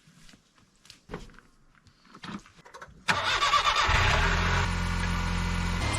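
A few faint knocks, then about three seconds in a vehicle engine starts suddenly and settles into a steady idle.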